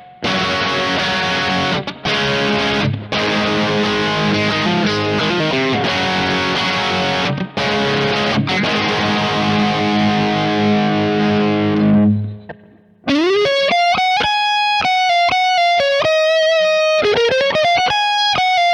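Distorted electric guitar, a Fender Stratocaster played through a Kemper profile of a Fender Frontman Reverb practice amp with a Mesa Mark IIc+ cabinet swapped in. Thick chord riffs with a few short stops, then after a brief pause about twelve seconds in, a lead line of held notes with bends.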